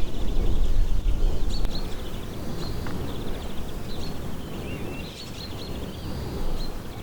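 Small birds chirping and trilling in short, rapid bursts, repeated throughout, over a steady low outdoor rumble.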